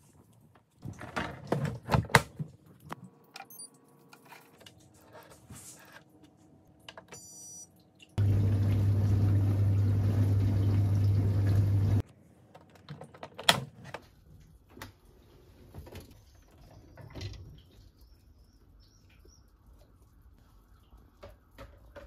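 Knocks and rattles from the dishwasher's wire racks, then the Indesit dishwasher running for about four seconds: a steady low hum under rushing water, starting and stopping abruptly.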